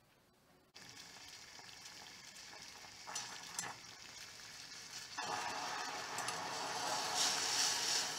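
Soy-based tempura sauce simmering and bubbling in a small stainless steel saucepan, starting suddenly under a second in. Cornflour slurry is poured in partway through, and about five seconds in the bubbling gets louder and more vigorous as the sauce boils and thickens.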